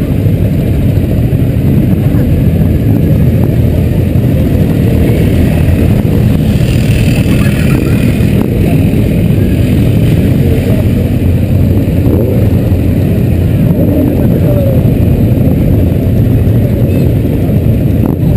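Motorcycle engines, the rider's own Yamaha XJ among them, running steadily at low parade speed, heard as a dense low rumble on a helmet-mounted camera. A brief burst of higher, hissier sound comes about seven seconds in.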